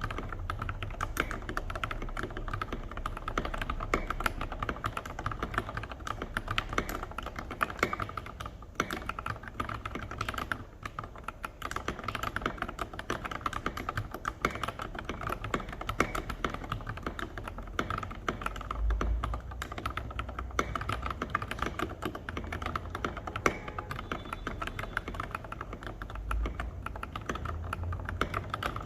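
Continuous fast typing on an NJ68 mechanical keyboard with lubed Cherry MX Black Retool linear switches under tall SA-profile keycaps: a dense, unbroken stream of keystrokes.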